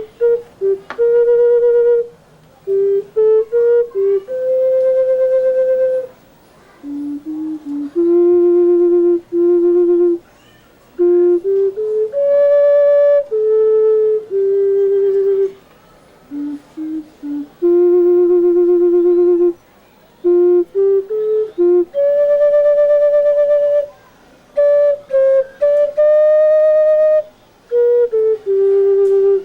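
Clay ocarina playing a slow melody, one clear note at a time. It moves between long held notes and quick short runs, in phrases with short breaks between them.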